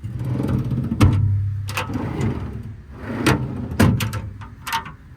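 Metal tool drawers of a truck service body being worked: sharp knocks and clunks about a second in, again twice a little after three seconds, and a rattle near the end. A steady low hum runs underneath.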